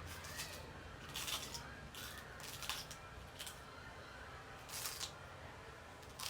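Short, crisp rasping strokes, about seven at irregular intervals, from hands working on a wig, over a faint low hum.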